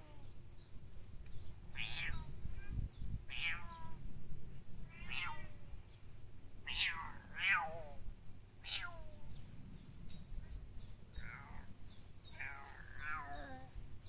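Bengal cat meowing repeatedly: about eight drawn-out calls, each falling in pitch, one every second or two.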